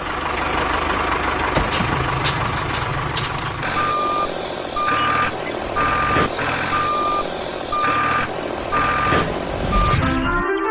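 Vehicle reversing alarm beeping about once a second over a running engine, starting about four seconds in.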